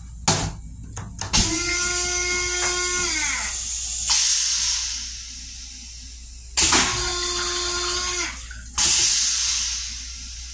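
M7 railcar toilet flushing twice: each time a motor starts with a steady whine and rushing water, then winds down in pitch, and a hiss of water follows and fades. A few knocks of the plastic lid being raised come just before the first flush.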